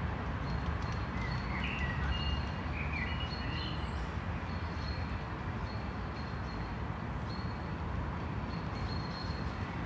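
City street ambience: a steady low rumble of distant traffic, with birds chirping over it. Short high chirps repeat throughout, and a brief warbling phrase comes about two seconds in.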